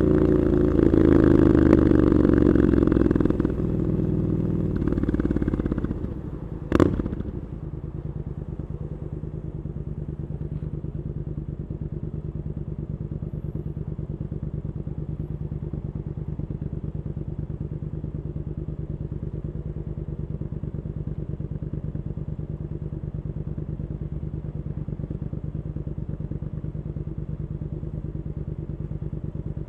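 Triumph Scrambler 900's parallel-twin engine breathing through Arrow exhaust pipes, the revs dropping in steps as the bike slows, then a single sharp crack about seven seconds in, after which the engine idles steadily with an even beat.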